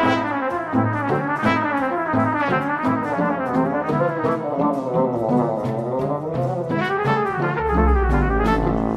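Background music led by brass instruments, trumpets and trombones playing a moving melody over a steady beat.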